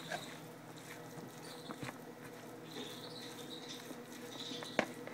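A plastic spoon stirring flaked canned tuna with peas and carrots in a plastic container: faint, soft scraping and squishing, with a few light clicks of the spoon on the container, the loudest near the end.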